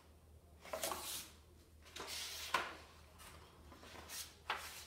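Pages of a hardcover picture book being flipped by hand: three short paper rustles, about a second and a half to two seconds apart.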